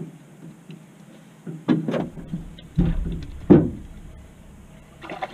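Four hollow thumps and knocks on a fishing boat's deck, spread over about two seconds in the middle, as someone moves about and handles the catch.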